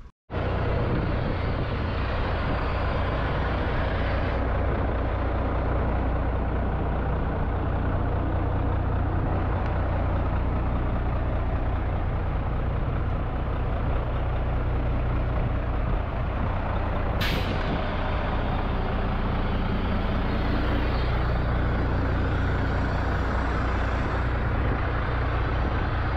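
Volvo FH12 460 truck's diesel engine idling steadily. A short, sharp hiss of air about two-thirds of the way through.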